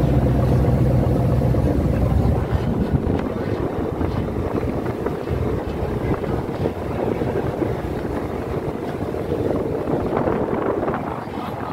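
Passenger ferry's engines droning steadily, with wind buffeting the microphone. The low engine hum is plainest for the first couple of seconds, then rougher wind noise takes over.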